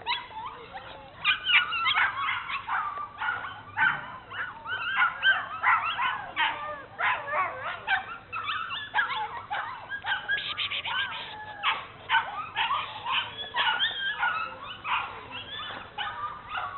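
Bernese Mountain Dog puppies yipping and whining as they play-fight, a quick, unbroken run of short, high-pitched squeals and yelps.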